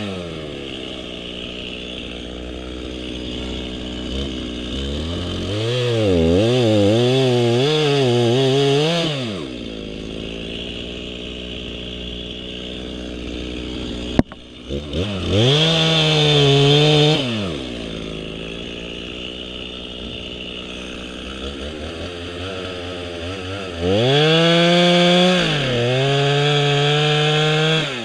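Two-stroke chainsaw cutting oak: it drops back to idle between cuts and revs up into the wood three times, about 6, 15 and 24 seconds in, its pitch wavering under load during the cuts. A sharp knock comes about 14 seconds in.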